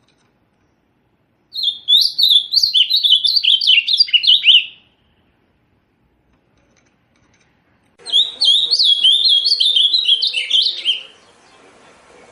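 Azulão-da-mata, a Cyanoloxia grosbeak, singing two phrases of quick, pitch-bending whistled notes, each about three seconds long, the first starting about a second and a half in and the second about eight seconds in.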